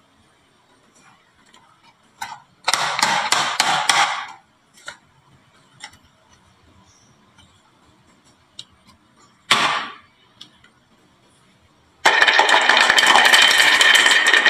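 Marbles clattering down a wooden HABA marble run: a single click, then a quick rattle of clicks lasting about a second and a half, a few scattered clicks, and another short rattle around the middle. Loud music starts about two seconds before the end.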